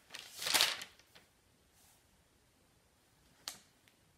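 Paper rustling for about the first second as pages are handled, then quiet with a single sharp click about three and a half seconds in.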